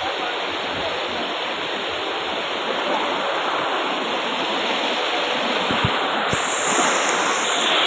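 Floodwater rushing in a steady, loud torrent, with two brief low thumps about six seconds in.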